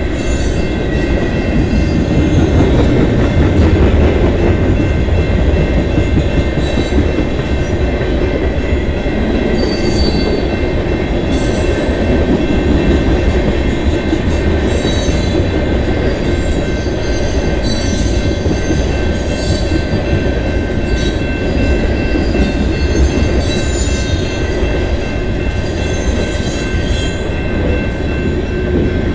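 CN freight train of tank cars and covered hopper cars rolling past at a level crossing: a steady heavy rumble of steel wheels on rail with irregular clacks, and a few faint steady high tones over it.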